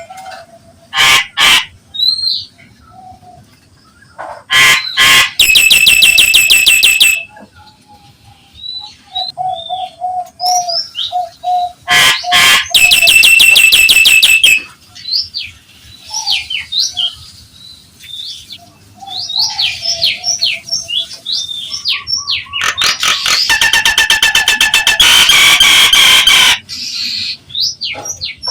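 Nias hill myna calling: varied whistles and sharp clicks, broken three times by loud, harsh, rapidly pulsed rattling calls of about two, two and four seconds, the longest near the end.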